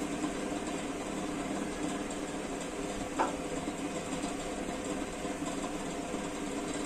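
A steady machine hum holding several even tones, with one sharp click about three seconds in as a small engine part is handled.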